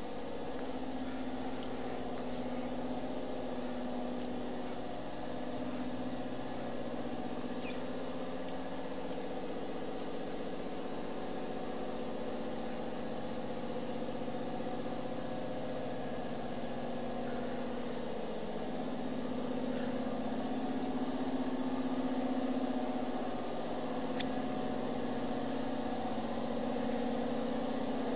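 Pallet conveyor assembly line running: a steady machine hum from its drive motors that swells and eases slowly, with a couple of faint ticks.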